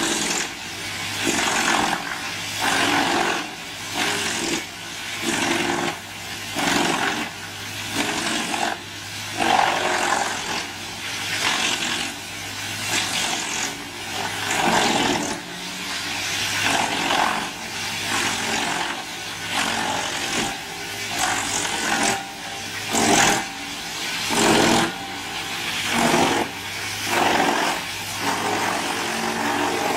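Large wood chipper running, with loud crunching bursts about every two seconds as wood goes through the cutters.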